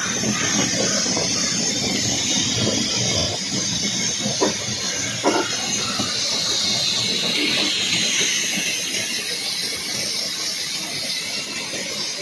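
Green bamboo tubes roasting in a wood fire: a steady hiss of steam escaping from the heated bamboo over the burning fire, with two sharp crackles about four and a half and five seconds in.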